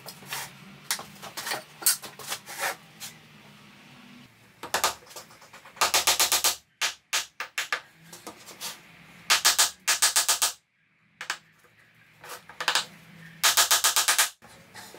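Small hammer tapping nails into beech divider strips: scattered single taps, then three quick runs of several blows each. Background music underneath.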